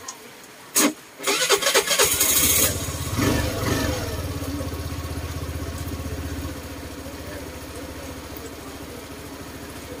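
Suzuki Burgman Street 125 scooter started with the ignition key: a click, about a second of electric-starter cranking, then the single-cylinder engine catches, revs briefly and settles to a steady idle, a little quieter from about six and a half seconds in.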